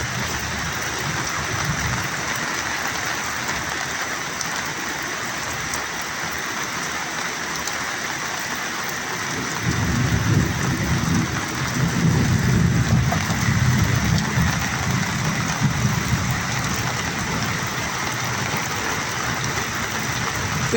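Heavy rain falling steadily, an even hiss. Near the middle a low rumble comes in and lasts about six seconds.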